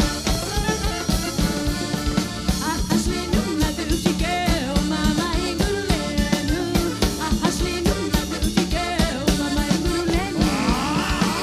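Band music with a drum kit keeping a steady beat under pitched instruments; the sound changes about ten and a half seconds in.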